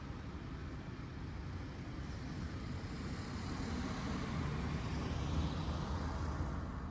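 A motor vehicle passing on the road, its tyre and engine noise swelling to a peak about two-thirds of the way through, then fading near the end.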